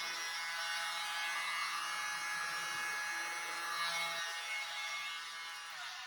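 Hairdryer running, a steady motor whine over a rush of air, winding down with a falling pitch near the end as it is switched off.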